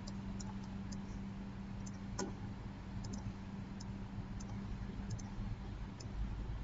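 Scattered, faint computer mouse clicks, irregular and a few seconds apart, one a little louder about two seconds in, over a steady low hum.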